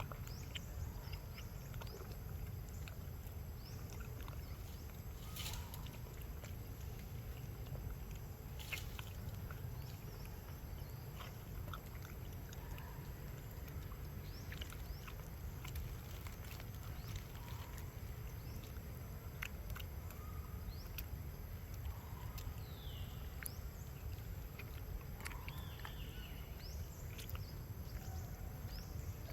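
Outdoor ambience: a steady low rumble with scattered faint clicks and a few brief high chirps.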